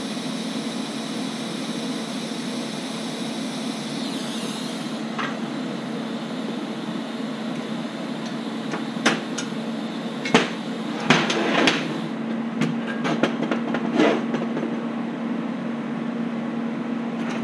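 Welding arc hissing steadily, cutting off about four seconds in. Then a run of sharp metallic clanks and clicks as a steel C-clamp and steel bracket plates are handled on a steel welding table, over a steady low hum.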